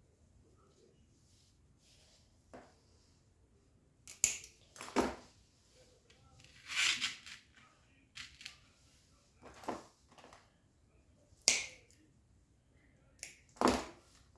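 Hand handling noises: a series of short, sharp clicks and rustles, about six of them spread a second or two apart, with quiet between.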